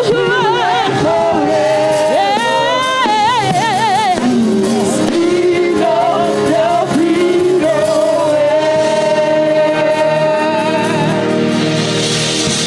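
Gospel singing over instrumental backing, with a solo voice drawing out long notes with a wide vibrato. One note is held for several seconds in the second half.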